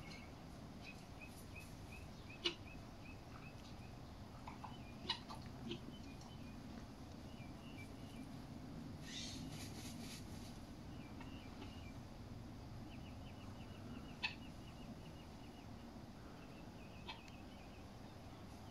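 Faint sounds of a guinea fowl dust bathing: a brief rustle of feathers and dirt about nine seconds in as it spreads and shakes its wing, with several sharp clicks scattered through. Faint rapid high chirping trills come and go in the background.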